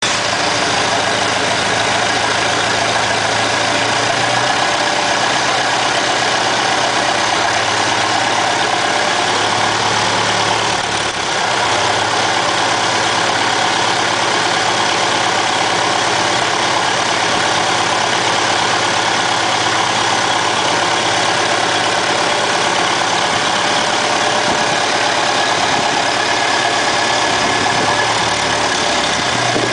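Isuzu 4JG-series four-cylinder intercooled turbodiesel running steadily at idle on an engine stand, outside the vehicle for a test run.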